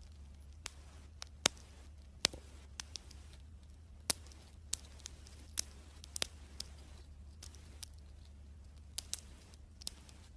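Chipmunk crunching food held in its paws: irregular sharp little crunches, about two a second, over a faint low hum.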